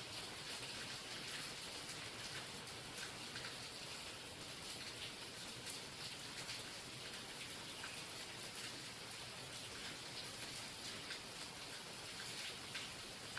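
Steady rain falling, an even hiss with many scattered drops tapping through it.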